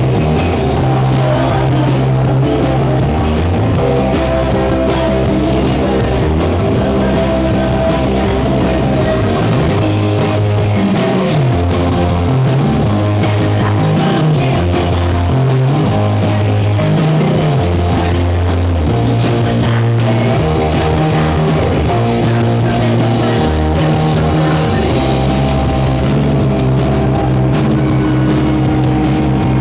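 Rock band playing live and loud: distorted electric guitars over a moving bass line and a drum kit, with the cymbals keeping a steady beat from about ten seconds in.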